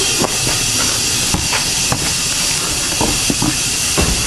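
A steady hiss, with a few light knocks scattered through it.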